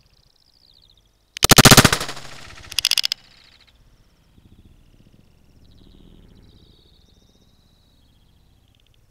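Gunfire: a very loud burst of rapid shots about a second and a half in, then a shorter burst of shots about a second later.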